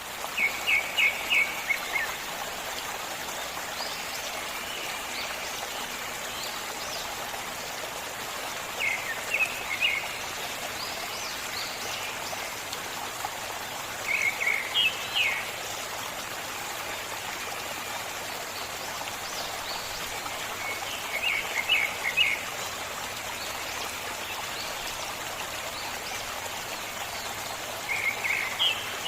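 A forest stream flowing steadily, with a bird singing five short phrases of rapid repeated chirps over it, one every six or seven seconds.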